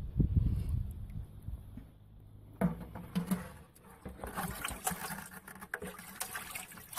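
A perforated metal colander clicking and scraping against the inside of a plastic bucket as frog eggs are tipped in. The scraping starts a couple of seconds in and becomes busier about halfway through. A low rumble on the microphone comes first.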